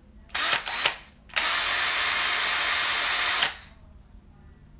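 Craftsman cordless drill spinning freely: two short trigger blips, then a steady run of about two seconds that cuts off sharply.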